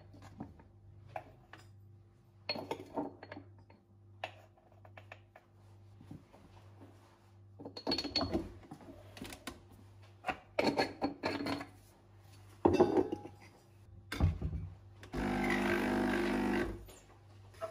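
Clinks, taps and knocks of coffee-making gear: grounds scooped from a glass jar, the portafilter tapped and tamped, and a sharp knock as it goes into the machine. Near the end an espresso machine's pump buzzes steadily for about a second and a half.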